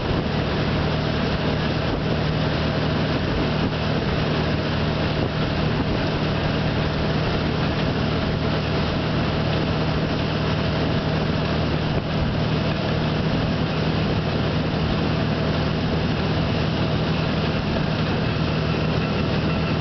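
Tow boat's engine running steadily under way, a constant low hum, with wind and rushing water over it.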